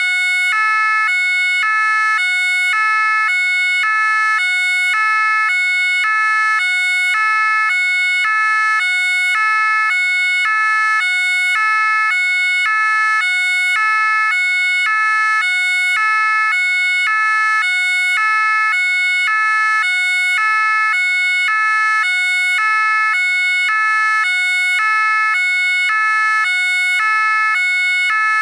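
French gendarmerie two-tone siren ("pin-pon") sounding continuously, alternating evenly between two notes, each held about half a second.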